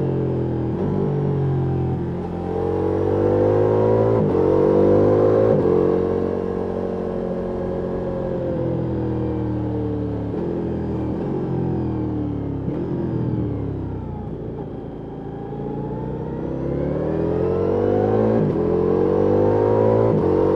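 Ducati Multistrada V4 S Rally's V4 engine through an Akrapovic exhaust, accelerating hard with the revs rising and dropping sharply at each quick upshift. It then eases off, the revs falling through the middle with downshifts, and climbs through the gears again near the end.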